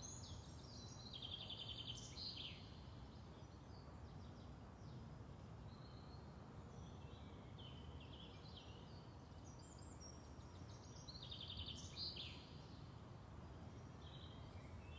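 Faint birdsong: small birds chirping and trilling in short phrases, clearest about a second in and again around twelve seconds, over a quiet outdoor hiss.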